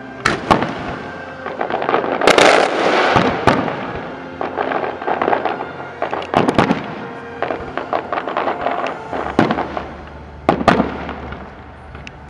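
Aerial firework shells bursting in quick succession: sharp bangs with crackling between them, thickest about two to three seconds in, and a pair of loud bangs a couple of seconds before the end.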